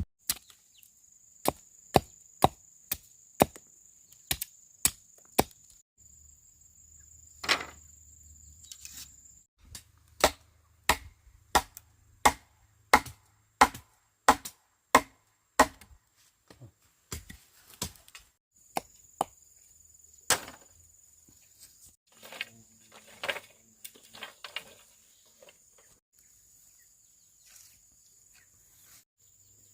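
Bamboo being chopped with a blade: a run of sharp strikes, about two a second, that thin out to occasional blows past the halfway point, with some crackling near the end. A faint steady high-pitched buzz runs underneath.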